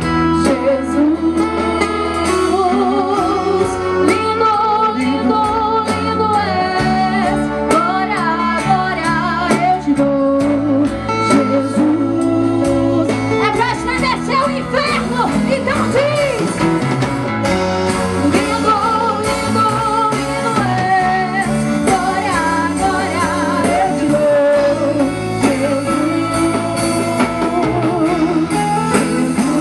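Gospel worship song: sung vocals over a band with guitar and bass.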